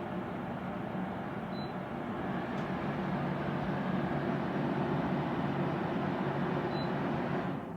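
Portable air conditioner running: a steady fan and compressor hum that grows a little louder midway, then fades away near the end.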